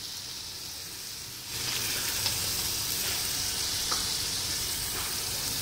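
Green beans frying in spiced oil in a pressure cooker pan, with a steady sizzle that gets louder about a second and a half in. A few light clicks of a slotted metal spoon against the pan.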